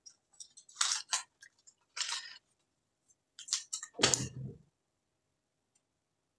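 Crinkling and tearing of an adhesive bandage's wrapper being opened by hand, in a few short crackly bursts, with a dull thump about four seconds in.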